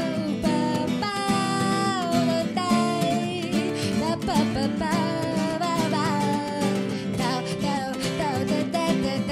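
Acoustic band music: three acoustic guitars strumming chords under a woman singing a melody with vibrato and pitch bends.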